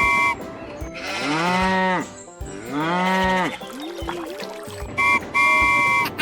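Two long cow moos, each rising and then falling in pitch, set between short steady beeps at the start and again near the end.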